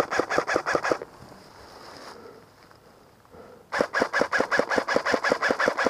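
Sig 556 airsoft electric gun firing on full auto at about eight shots a second, each shot a sharp crack with a gearbox buzz. A one-second burst is followed by a pause, and then a longer burst starts a little before four seconds in.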